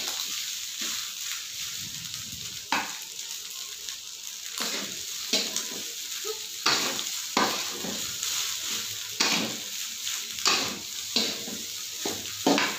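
Fried rice sizzling in a metal wok while a metal spatula stirs it, scraping and knocking against the pan in irregular strokes that come more often in the second half.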